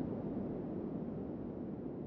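Wind blowing: a low, even rushing noise that slowly eases off.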